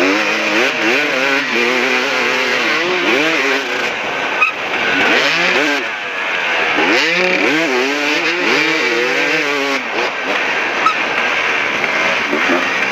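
KTM 380 two-stroke dirt bike engine being ridden hard, its pitch climbing and dropping again and again with each twist of the throttle and gear change.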